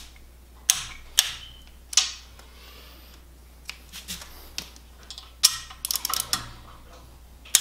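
Ratcheting torque wrench and socket working the bedplate bolts of a BMW N54 engine block: separate sharp metallic clicks and clinks, then a quick run of ratchet clicks about six seconds in.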